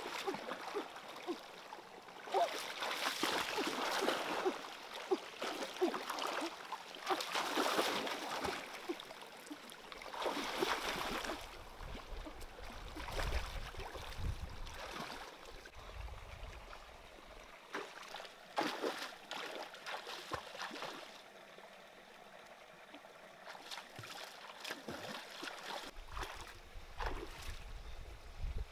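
Hands splashing and sloshing among stones in a shallow stream, with water trickling over the rocks. The splashing comes in loud bursts for the first dozen seconds and is quieter and sparser later on.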